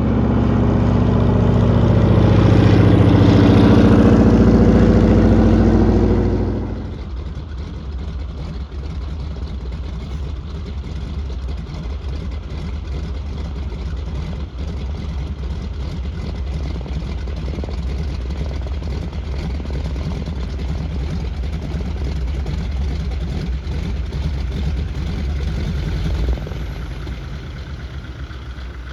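Light bush plane's piston engine running, loud for about the first six seconds, then dropping suddenly to a lower, steady, fast-pulsing drone that fades near the end.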